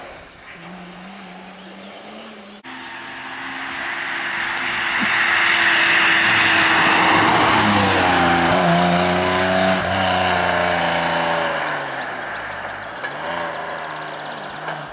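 Rally car at speed: its engine comes in from a distance and grows loud as it passes close by at full throttle. The engine note then drops, dips and rises again as the car pulls away and fades. Before it, a faint steady engine note cuts off suddenly about two and a half seconds in.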